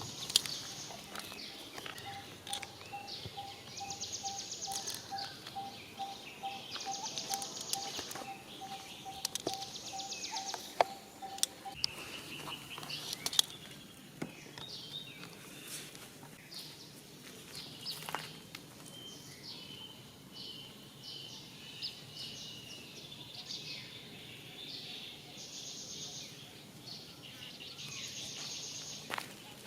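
Outdoor wild ambience of animal calls. Bursts of high buzzing about a second long come every few seconds. A low note repeats about three times a second for roughly ten seconds, a high wavering call comes twice in the middle, and sharp clicks and rustles are scattered throughout.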